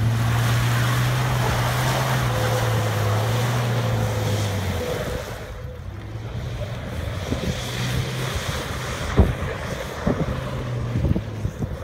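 RAM pickup truck's engine droning steadily as the truck drives through a muddy field, then fading about five seconds in as it pulls away. Wind buffets the microphone throughout.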